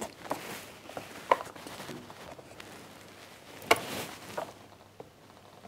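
Quiet handling of a plastic Play-Doh castle mould: faint clicks and taps of the hinged door against the castle, with two sharper taps about a second in and just under four seconds in.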